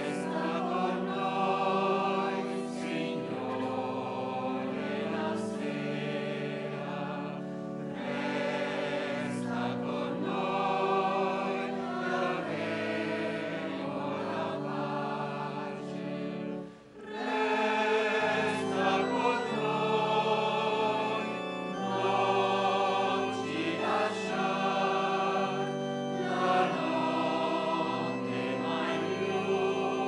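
A choir singing a hymn in long held notes, with a brief break about seventeen seconds in before the singing resumes a little louder.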